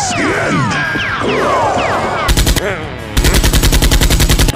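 Automatic gunfire sound effect: a short rapid burst about two seconds in, then a longer burst of about eleven shots a second near the end. Under it runs a string of falling, squealing whistle-like tones.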